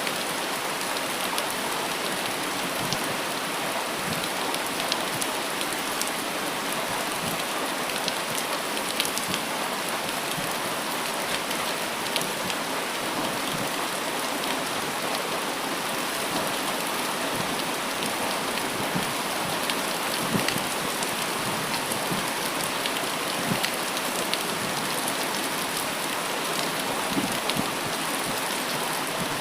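Steady rain falling, with a dense hiss and many individual drops pattering on leaves and surfaces close to the microphone.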